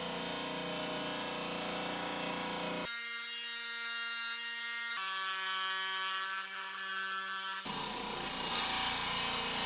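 Diamond-blade lapidary saw running and cutting through an agate, a steady whine with several pitched tones. The pitch and tone shift suddenly three times.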